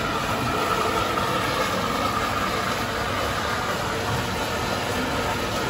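Electric blender running steadily with a faint whine, blending a fresh fruit shake.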